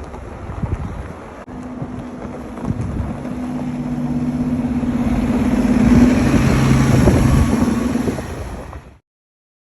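Motor vehicle engine humming over a rumble of road and wind noise, growing louder toward about six seconds in; the sound cuts off suddenly near the end.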